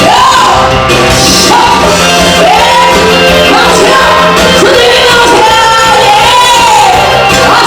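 A singer's voice carrying a sung melody, with vibrato on the held notes, over loud steady band accompaniment.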